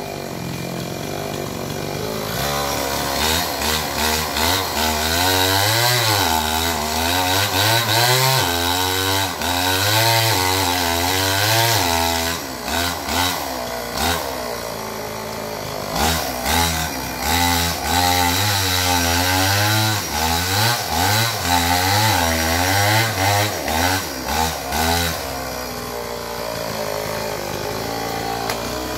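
Two-stroke chainsaw cutting into an oil palm trunk. It runs low at first, then revs hard with its pitch rising and falling as the chain bites. Around the middle it drops back briefly to a few short throttle bursts, revs hard again, and settles back to a low run near the end.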